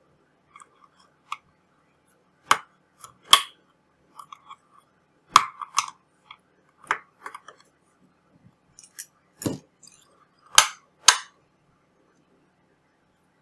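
Irregular sharp clicks and knocks of a carbon monoxide alarm's plastic case and parts being handled and fitted back together, about eight louder knocks among faint small ticks.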